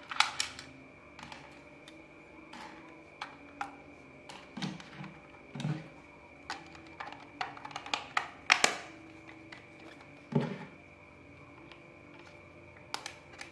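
Irregular clicks, taps and knocks of small hard plastic parts being handled: propellers and joystick caps pulled from a toy drone's plastic controller case and snapped into place, with a few louder knocks against the case.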